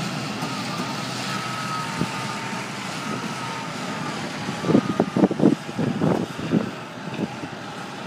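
Tractor engine running steadily under way, with a faint high whine, while towing an empty tipping trailer. About halfway through comes a burst of irregular clunks and rattles, the loudest sounds here, lasting around two seconds.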